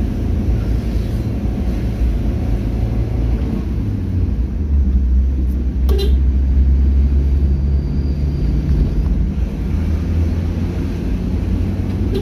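Vehicle engine running under way along a road, with a steady low rumble of road and wind noise; the engine note shifts partway through. A single short click about six seconds in.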